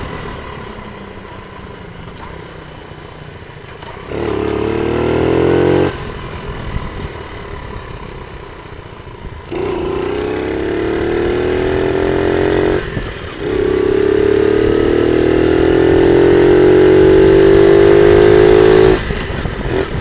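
50cc Panterra dirt bike engine riding along under throttle. It revs up three times, climbing in pitch each time, and drops back to a low, quieter run between the rev-ups as the throttle is eased off.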